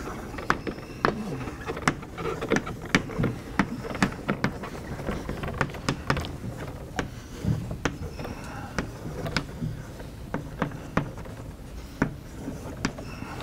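Chalk writing on a blackboard: a string of sharp, irregular taps and short scrapes, several a second, as letters are written.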